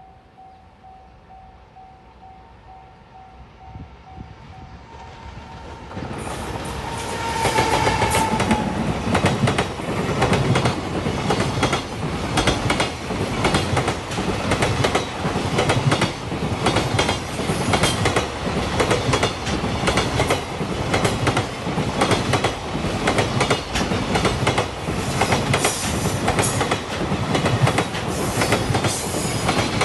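A level-crossing warning bell rings in steady pulses, then a JR Freight EF210 'Momotaro' electric locomotive and its freight wagons arrive loudly about six seconds in. The locomotive sounds a short horn blast, and the wagons pass with a steady clickety-clack of wheels over the rail joints.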